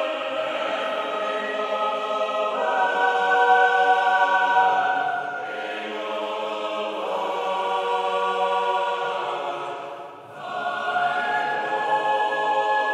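A choir singing long held chords that shift every few seconds, with a brief drop in level about ten seconds in before a higher chord enters.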